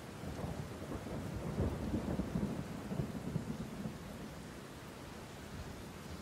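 Steady rain falling, with a low rumble of thunder that builds about half a second in and fades after the first few seconds.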